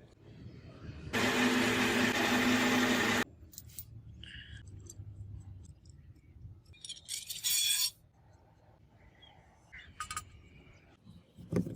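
A power tool whirs steadily for about two seconds, then metal pieces clink and are handled, with a second short hissing burst midway.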